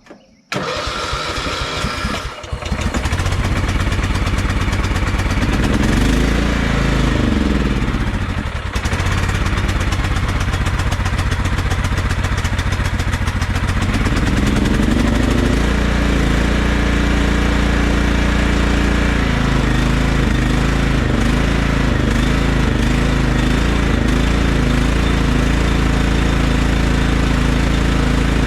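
Craftsman LT1000 lawn tractor's Kohler Command engine cranked by its electric starter for about two seconds, then catching and running on fresh gas after an empty tank had kept it from starting. Its speed rises and falls twice before settling into a steadier run with slight wavering, in keeping with the surging the owner remembers in this engine.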